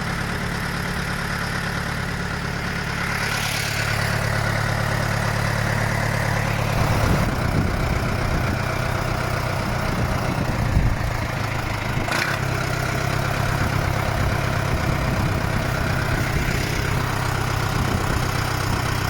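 Tractor engine running steadily, getting a little louder about four seconds in, with a few brief rushing bursts over it, the sharpest about twelve seconds in.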